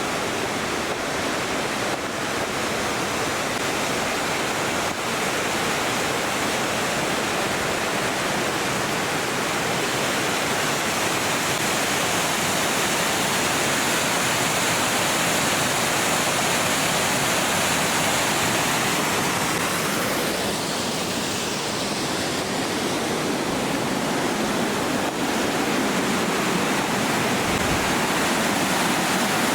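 Kings Creek's falls and cascades: a steady, loud rush of falling water.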